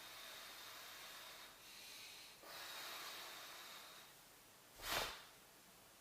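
A man breathing out heavily, several long exhales, while holding a seated spinal twist. About five seconds in there is one short, loud thump.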